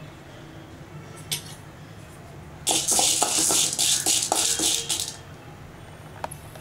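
Steel spoon stirring chana dal and urad dal as they roast in an aluminium kadai: the lentils rattle and scrape against the metal pan for about two and a half seconds. A single click comes about a second before, and another comes near the end.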